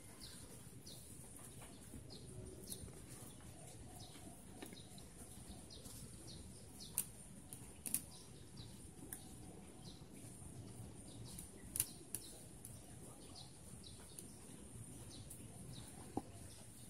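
Faint outdoor background with small birds chirping in short, repeated high notes, and a few sharp clicks scattered through.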